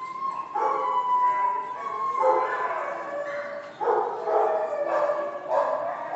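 A dog giving a series of drawn-out, pitched calls, about four in a row, each lasting over a second.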